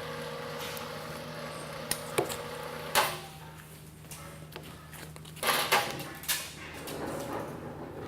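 Sharp metal clanks and knocks of heavy steel parts being handled and fitted, the loudest about three seconds in and a cluster of several near the end, over a steady low machine hum.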